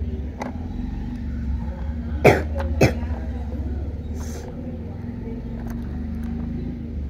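Two short coughs about half a second apart, a little over two seconds in, over a steady low rumble.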